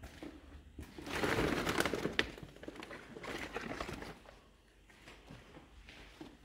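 Rustling and crinkling close to the microphone, with a few sharp clicks, in two spells: a loud one about a second in and a weaker one about three seconds in, from a person moving and handling things on a debris-strewn floor.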